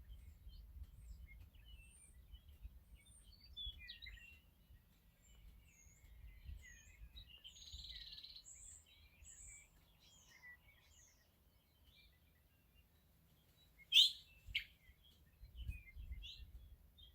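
Western meadowlarks singing and calling: a scatter of short whistled notes and chirps, with two loud, sharp calls about fourteen seconds in, over a faint low background rumble.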